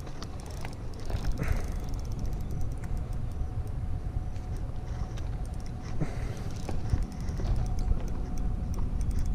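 Spinning reel on an ultralight rod clicking rapidly while a big fish, taken for a stingray, is played on it. Heavy wind rumble and a few handling knocks on the microphone run under it.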